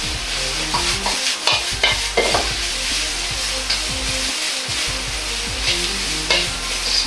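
Vegetables and pork sizzling in a hot wok as a metal ladle stirs and scrapes them against the pan, with a few knocks of the ladle on the wok.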